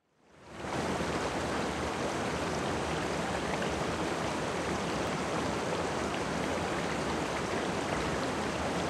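Shallow river rushing over rocks: a steady rush of water that fades in over the first second and holds even.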